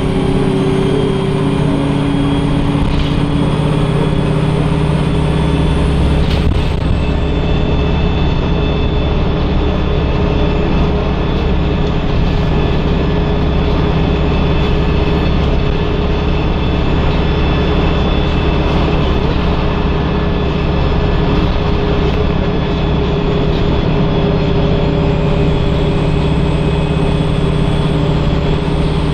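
Interior noise of a Wright StreetLite DF single-deck diesel bus running at a steady speed: a continuous low engine and road rumble with several steady whining tones over it, and no gear changes or revving.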